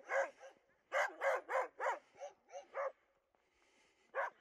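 Dog barking in quick runs of short barks, about three a second, with a pause of about a second before three more barks near the end.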